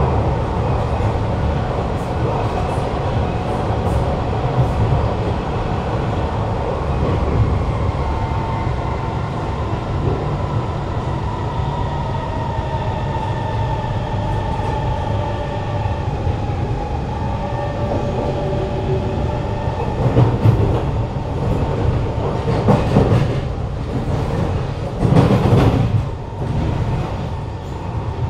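Kawasaki Heavy Industries C151 metro car running on the line, heard from inside the carriage, which sits over a strong-sounding motor. Its GTO-VVVF traction motors whine in slow gliding tones over a steady wheel and track rumble. Louder rushes of noise come about two-thirds through and again near the end.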